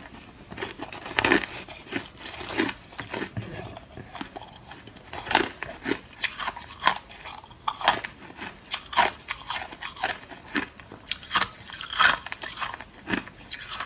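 A person biting and chewing hard, clear crushed ice close to the microphone: irregular sharp crunches, several a second, with crackling between them as the ice breaks up.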